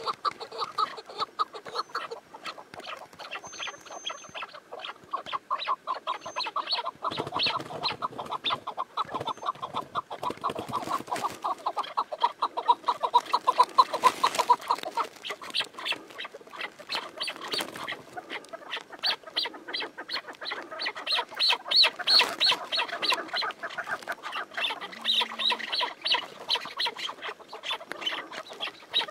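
Chukar partridge calling: fast, continuous runs of short repeated notes that carry on throughout.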